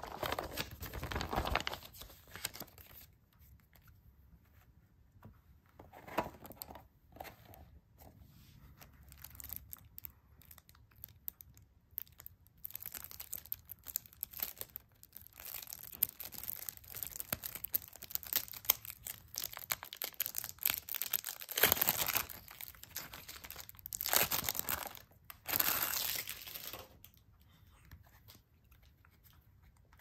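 Plastic shrink wrap being torn and crinkled off a sealed deck of trading cards, in irregular bursts with the loudest tearing about two-thirds of the way through. At the start, a folded paper insert rustles briefly as it is handled.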